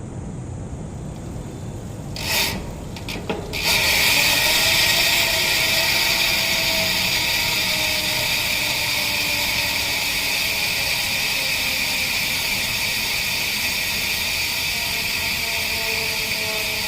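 Speedone Sniper V3 50T bicycle rear hub freewheeling: a short burst of buzz, then from about three and a half seconds in a loud, steady ratcheting buzz as the spun wheel coasts, its pitch drifting slowly lower as the wheel slows.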